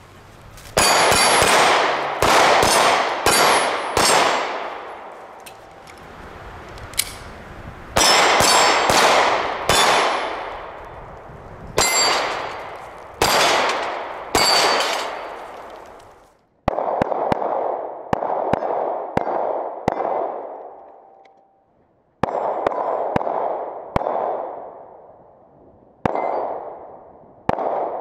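Handgun fired in quick strings of shots, several a second, in bursts of two to six with short pauses between. Steel targets ring after hits, mostly in the first half.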